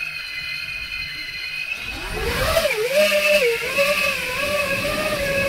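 Electric motors and propellers of a remote-controlled aircraft whining. It is faint at first, then grows louder about two seconds in, its pitch wavering up and down.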